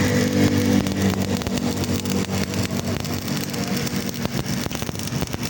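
Stick-welding arc crackling and spitting over a steady low hum.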